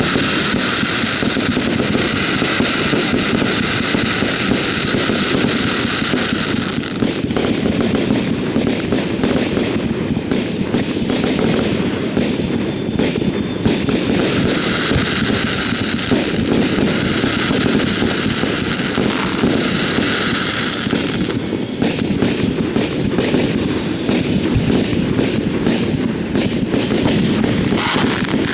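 Fireworks display going off in a rapid, unbroken barrage of bangs and pops. A dense crackling hiss rides over it for about the first seven seconds, and again from about a quarter of a minute in for some seven seconds.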